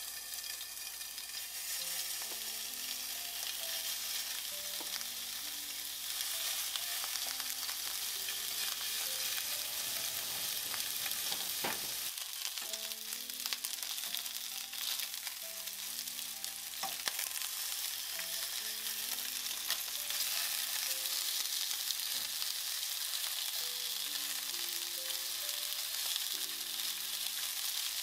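Pork belly rolls sizzling in hot rice oil in a nonstick frying pan, the sizzle growing louder over the first several seconds as more rolls go in. Metal tongs click against the pan a few times as the rolls are turned. Soft background music with a simple melody plays under it.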